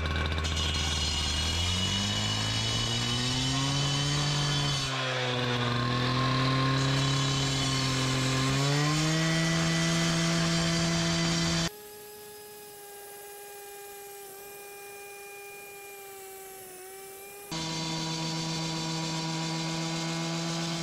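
Power saw cutting a granite stair tread in half, with water running on the blade. Its pitch climbs and dips through the first several seconds of the cut; about halfway it suddenly drops to a quieter, cleaner whine for about six seconds, then the louder cutting sound returns.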